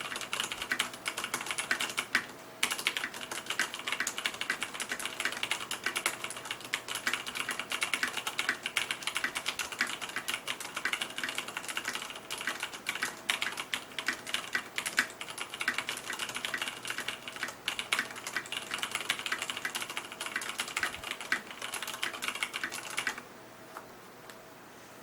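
Typing on an ikbc KD87 mechanical keyboard with Cherry MX Brown switches: a fast, continuous clatter of key presses with a brief pause about two seconds in. The typing stops near the end, leaving a faint hiss.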